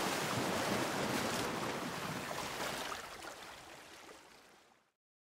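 Steady rushing water noise that fades away over the last two seconds and cuts to silence just before the end.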